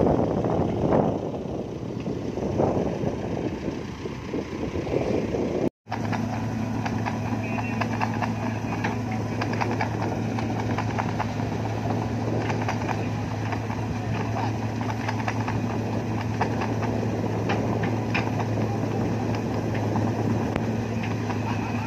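Wind buffeting the microphone. After a cut, a diesel engine runs at a steady, unchanging pitch, with scattered clicks and knocks over it.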